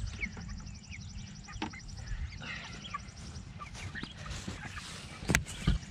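Four-week-old meat chickens cheeping in short, scattered calls. Two sharp thumps come near the end.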